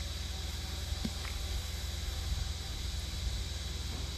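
Steady outdoor background noise: an even hiss over a low rumble, with a thin continuous high tone and a faint tick about a second in.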